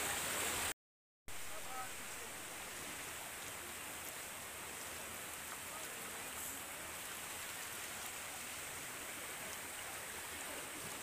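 Steady rush of floodwater flowing around people wading through it, with a brief dropout to silence about a second in.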